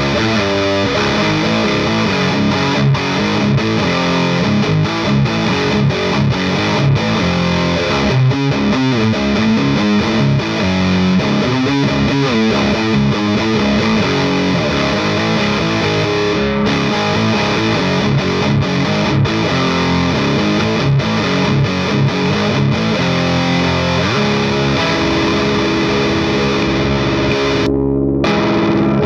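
Heavily distorted electric guitar played through a GupTech Evil Donkey preamp/drive pedal into an Orange Pedal Baby power amp: fast chugging metal riffs, then a chord left ringing over the last few seconds.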